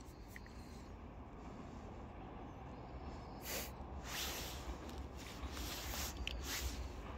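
Faint low rumble of an approaching Kishigawa Line electric train, slowly growing louder toward the end, with several short bursts of hissing noise in the second half.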